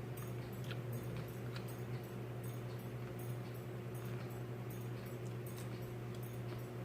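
Faint, irregular mouth clicks and chewing sounds from someone eating, over a steady low electrical hum.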